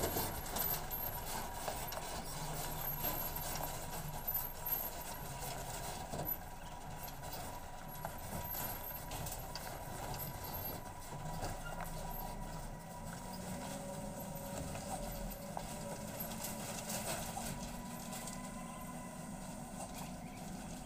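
Colt Diesel light truck loaded with iron creeping down a rough, potholed gravel road, its diesel engine running low and steady while irregular knocks and rattles come from the body and load over the holes. It draws away, so the sound stays fairly distant.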